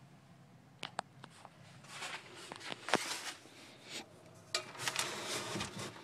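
Handling noises: a few sharp clicks, then irregular rustling with occasional ticks as things are moved about close to the microphone.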